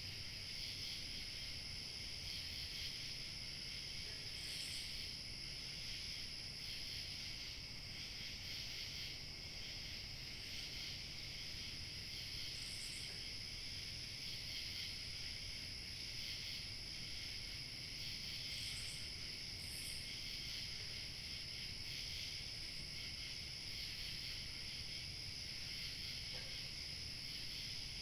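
A chorus of crickets chirping steadily and continuously in high-pitched layers, with a few brief higher chirps here and there over a faint low rustle of light wind.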